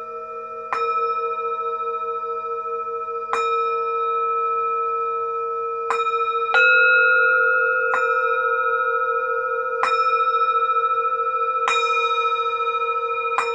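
Singing bowls struck in turn, about every two seconds, each strike ringing on in long overlapping tones that slowly waver. About six and a half seconds in, a louder, higher-pitched bowl joins.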